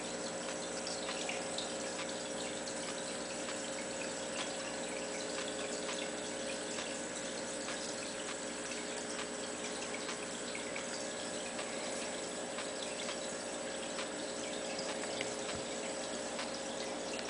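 Steady trickle and bubbling of aquarium water, with a faint constant hum under it, typical of a running tank filter or air pump.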